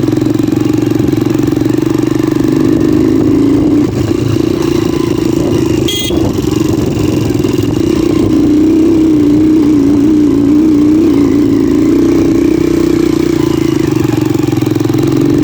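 Motorcycle engine running steadily under load as the bike is ridden, its pitch wavering a little with the throttle. A single short clack sounds about six seconds in.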